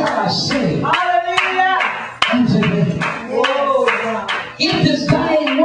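A man preaching into a microphone, with hand-clapping running through his words.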